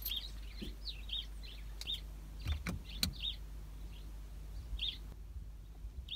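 A small bird chirping repeatedly in short, high notes, with a few faint clicks about halfway through.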